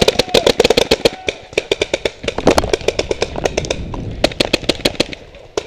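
Paintball markers firing rapid strings of shots, many pops a second, which thin out and stop near the end.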